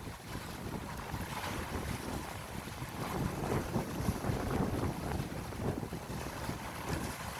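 Sea wind buffeting the microphone in uneven gusts, over the steady wash of waves.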